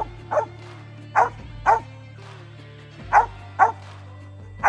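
Mountain cur barking treed: short, sharp chop barks, mostly in pairs about half a second apart, six or seven in all, the dog's signal that it has game treed in a hollow den tree.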